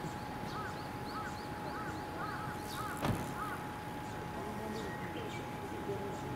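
A bird calling: a quick run of short rising-and-falling notes, about three a second, then lower calls near the end, over a low steady background with a faint steady tone. A single sharp knock sounds about three seconds in.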